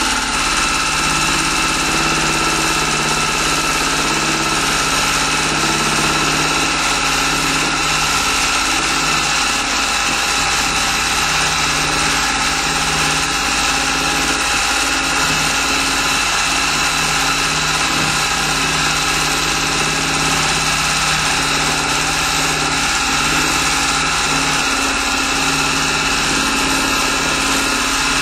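Juki sewing machine on a quilting frame running steadily at speed, its needle stitching through a quilt, with a constant motor whine.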